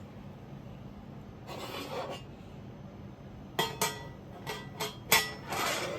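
Metal Pullman pan being handled: a short scrape, then, from about halfway, a run of sharp metallic clinks and knocks, a few with a brief ring.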